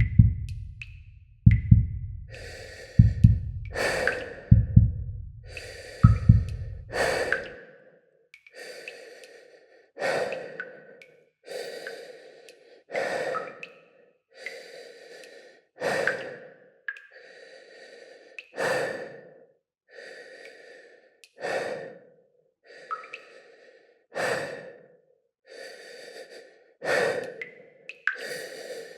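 Heavy, drawn-out human breathing as a horror sound effect: repeated breaths in and out, about one every second and a half. Low drum-like thumps with high ticks sound during the first several seconds, then stop.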